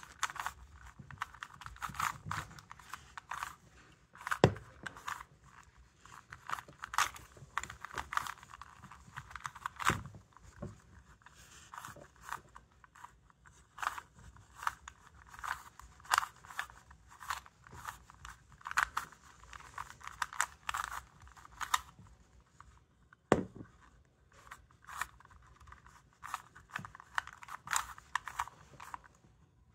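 A stickered 3x3 puzzle cube being turned by hand. The plastic layers click and scrape in quick, irregular runs with short pauses, and there are a few louder knocks.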